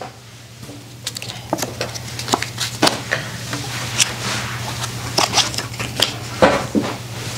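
Stiff paper playing cards being handled and laid down on a table: a run of short clicks, slaps and rustles, over a steady low hum.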